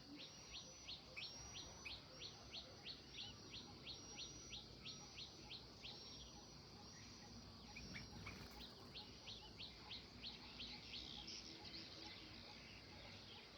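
Faint bird song: a long run of quick, downward-sliding chirps, about three a second, that pauses and then starts again in a shorter run, over a thin, high, steady note.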